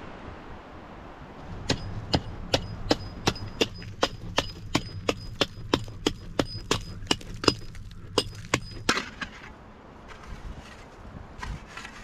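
A small hatchet chopping into frozen, ashy ground in quick, even blows, about three a second, each with a slight metallic ring. The chopping stops about nine seconds in.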